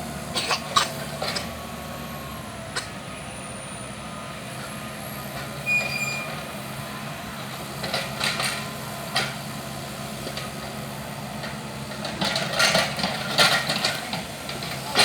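Excavator engine running steadily, with scattered knocks and clanks.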